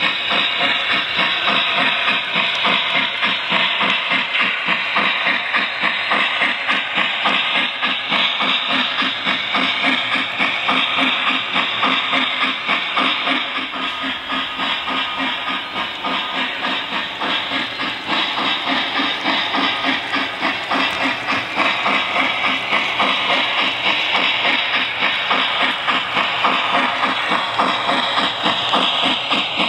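Lionel Berkshire O gauge model steam locomotive's RailSounds system playing steady steam chuffing, a fast even beat of puffs over a constant hiss, as the engine runs.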